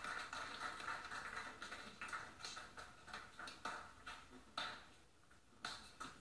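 A group of people applauding in a dressing room, heard through a TV speaker; the clapping thins out into scattered single claps, a few a second, with a quieter gap about five seconds in.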